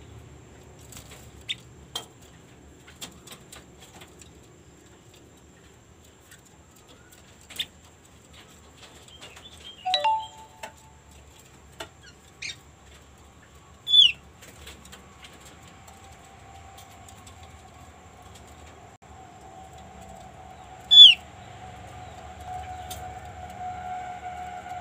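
Opyor bird calling in sparse, widely spaced short chirps, the loudest two sharp downward-sliding notes about 14 and 21 seconds in. This is a female opyor's call, used as a lure to draw males into singing. A faint steady tone builds in the last several seconds.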